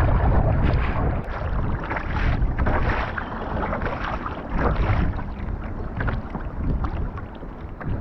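Wind buffeting the microphone, with choppy wind-driven waves slapping and splashing repeatedly against the bow of a sea kayak.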